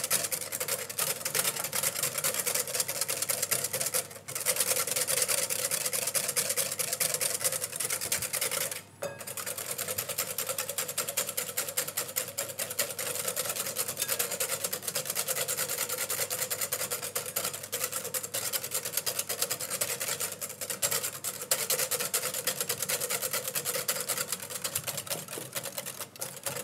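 Wire whisk beating fast against the sides of a glass bowl, whisking clarified butter into egg yolks to emulsify a hollandaise sauce. The whisking breaks off briefly a few times.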